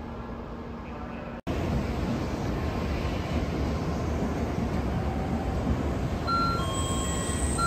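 N700-series Shinkansen train moving through the station, its running noise a steady, even rumble. A quieter hum comes first; the sound drops out for an instant about a second and a half in, then comes back louder. Near the end a faint high whine and a few short chime-like tones at different pitches rise above the noise.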